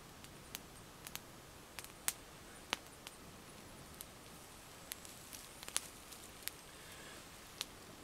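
A small fire of wet twigs catching, crackling with sharp, scattered pops at irregular intervals.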